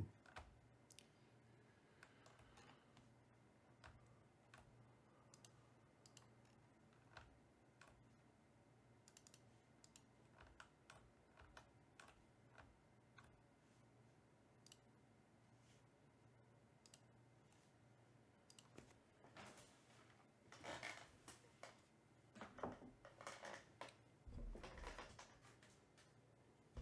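Faint computer mouse clicks and keyboard taps, scattered and irregular, over a low room hum, with louder shuffling noise twice in the last third.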